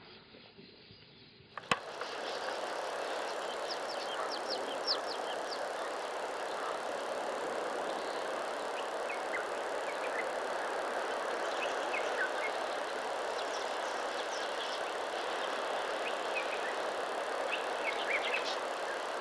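Outdoor bush ambience: after a sharp click about two seconds in, a steady even hiss with scattered short bird chirps and calls.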